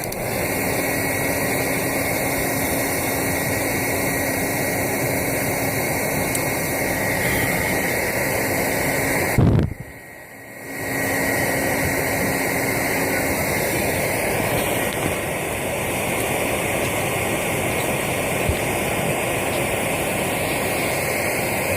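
Steady whir and rush of an electric fan blowing air into a homemade foundry furnace, with the fire roaring under the forced air. About halfway through there is a short knock, then the noise drops away for about a second before it resumes.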